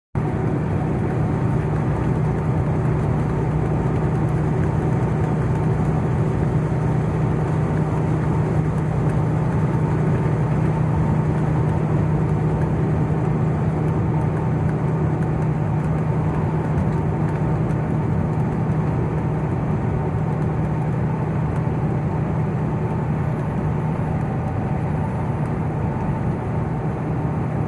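Semi-truck driving at a steady speed: a constant low engine drone over road and wind noise, with no change in pitch or load.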